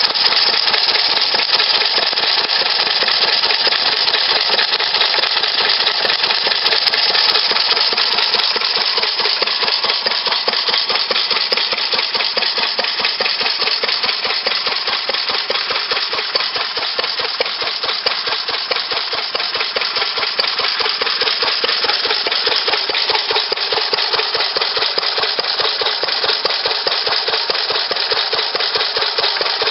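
New Idea Vari-Speed single-cylinder stationary gas engine running steadily, a rapid, even clatter of firing strokes and valve gear, the sound of a well-running engine.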